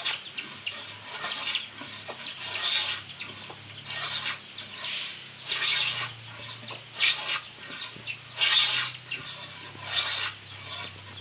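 Manual wooden hand plane shaving wood in repeated push strokes, about one rasping stroke every second and a half.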